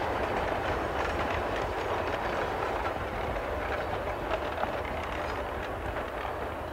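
Narrow-gauge railroad passenger coaches rolling past, a steady rumble of wheels on rail with occasional clicks, slowly fading as the last car goes by.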